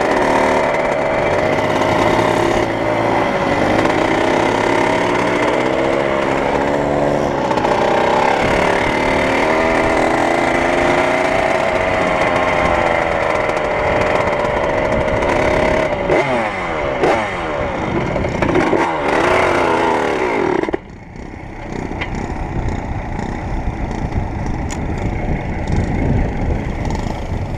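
1978 Yamaha YZ80's single-cylinder two-stroke engine running as the bike is ridden, its pitch rising and falling as the throttle opens and closes. About 21 seconds in, the engine note drops away suddenly, leaving a quieter, uneven low rumble.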